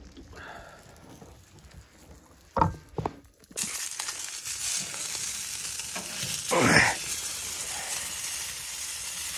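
Meat sizzling in a wire grill basket on top of a wood-burning tent stove: a steady hiss that starts suddenly about a third of the way in, with one louder burst about two-thirds through. Before it, a quieter stretch with two sharp knocks.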